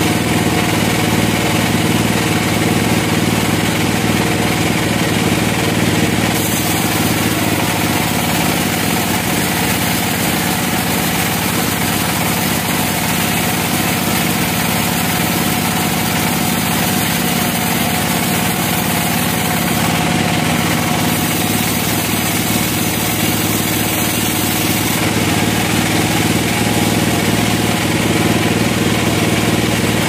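Large log band saw running steadily while it cuts lengthwise through a softwood log, a continuous machine drone with motor hum under the sawing noise.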